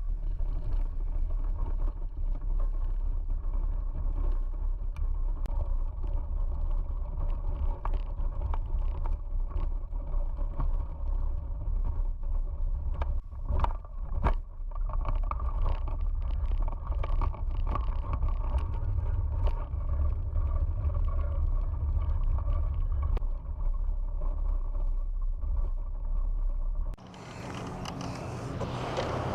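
Mountainboard rolling fast downhill on pavement: a steady low rumble from its air-filled tyres, with frequent small clicks and knocks. Near the end the rumble drops away and a broad rushing hiss takes over.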